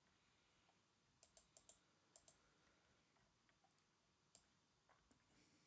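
Near silence with a few faint computer mouse clicks: a quick run of four or five about a second in, and one more near the end.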